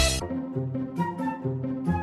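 Background music: a last loud hit of a run of strikes at the very start, then a light melody of held notes over a steady beat.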